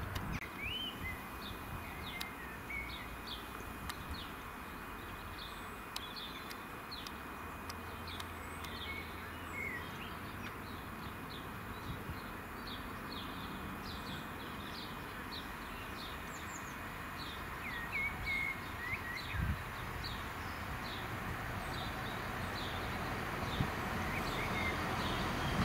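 Small birds chirping and singing over steady outdoor background noise, while a diesel multiple-unit train approaches and grows louder over the last several seconds.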